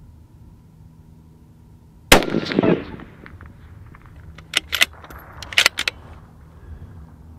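A single shot from a bolt-action precision rifle about two seconds in, its report trailing off over about half a second. From about four and a half seconds, a quick series of sharp metallic clicks follows as the bolt is worked to chamber the next round.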